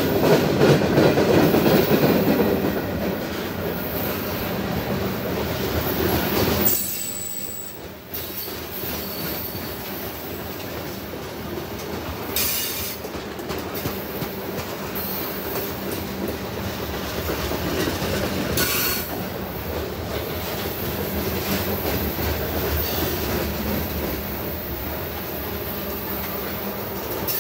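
CSX freight train rolling past: a steady rumble of wheels on the rails with clickety-clack and brief high wheel squeals. Loudest for the first several seconds, then dropping abruptly and running on steadier.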